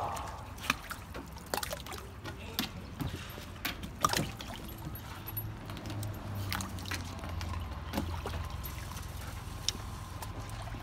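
Dogs wading in a shallow plastic wading pool, the water sloshing and splashing lightly around their legs, with scattered small splashes.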